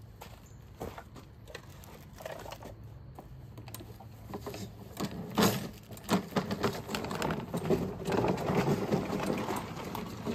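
Objects being handled and put away: irregular clicks, knocks and rustling, sparse at first, then busier and louder from about halfway, with a denser clatter near the end.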